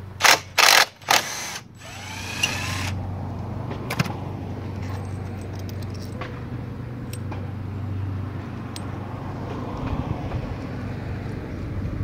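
Cordless DeWalt driver with a socket spinning out a Ninja 300 exhaust muffler bolt: three short loud bursts in the first second and a half, then a longer run that stops about three seconds in. A steady low hum continues underneath.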